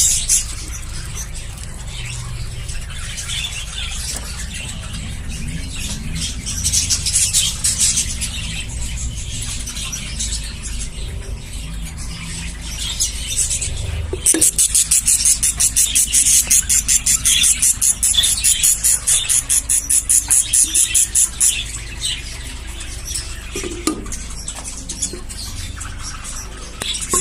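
Budgerigars chattering and squeaking in a colony aviary. About halfway through, a loud, fast, even run of high calls goes on for several seconds.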